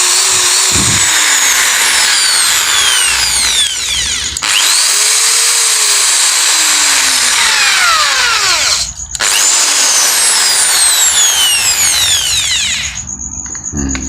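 Makita electric drill motor running at full speed with a loud, steady whine, back to normal after its burnt carbon-brush springs were dealt with. Twice, at about 4 and 9 seconds, the trigger is let off and the motor winds down briefly before spinning back up. It stops near the end.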